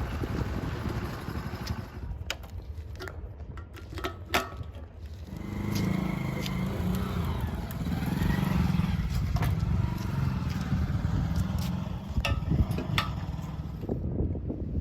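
Diesel engines of earth-moving machinery running, with a louder engine coming in about five seconds in and easing off near the end; scattered sharp knocks throughout.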